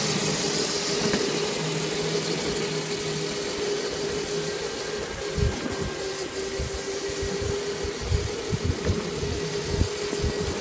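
Steady whine of the small electric motors in modified ride-on toy vehicles (a 36 V Power Wheels car and a 24 V mini moto) over a rushing hiss of movement. Irregular low thumps join in from about halfway.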